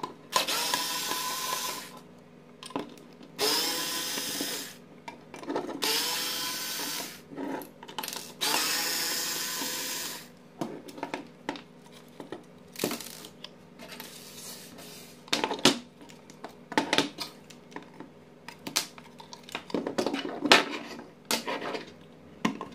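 Cordless drill-driver backing out four screws from the spotlight's plastic housing: four runs of motor whine, each a second or two long, in the first ten seconds. After that come scattered clicks and knocks as plastic parts are pulled and pried apart with a screwdriver.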